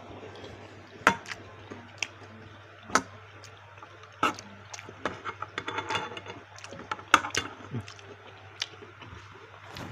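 Eating sounds from a bowl of spicy baso aci: several sharp clicks and taps, the loudest about a second in and near seven seconds in, with a busier patch of small crackly mouth and utensil sounds in the middle.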